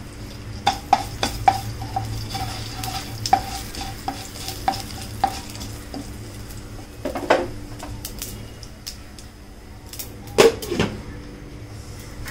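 Mustard seeds and asafoetida sizzling in hot oil in a pan, with a slotted spatula clicking and scraping against the pan as it stirs them, in a quick run of sharp clicks over the first few seconds. Two louder clanks of cookware come later.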